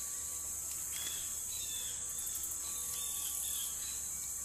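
Steady, high-pitched chorus of insects such as crickets, unbroken throughout.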